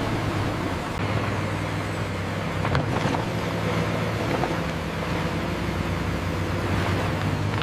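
Heavy diesel earthmoving machine running steadily under load, with a few sharp clanks about three seconds in.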